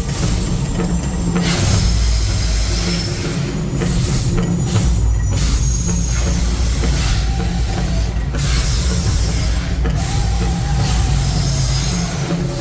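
Mirage volcano attraction erupting: a deep, steady rumble under a series of loud hissing whooshes, each lasting a second or more, with short breaks between them.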